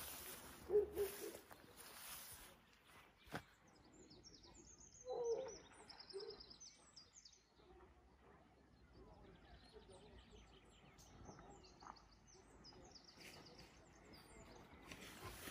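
Outdoor bird ambience: small birds chirping in high, thin trills, with a couple of low hooting calls about a second in and again about five seconds in.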